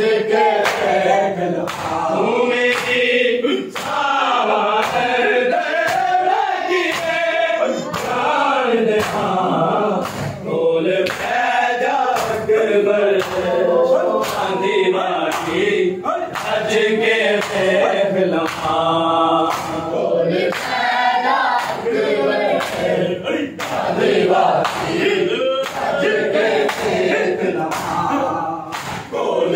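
A crowd of men chanting a Shia mourning lament in unison, with the sharp slaps of hands striking bare chests (matam) keeping a steady beat under the voices.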